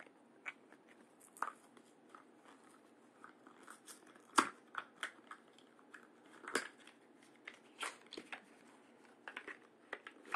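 Cardboard film box being opened by hand: scattered crackles, taps and small tears from the flaps, with the loudest snap about four and a half seconds in.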